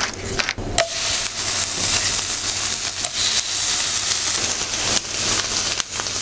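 New York strip steaks searing in a cast-iron skillet heated to about 400 degrees, making a dense, steady sizzling hiss that starts about a second in. A few short clicks come just before it begins.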